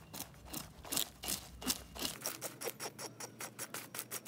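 Serrated fish scaler scraping scales off a bass inside a plastic bag: quick repeated scraping strokes, about four a second.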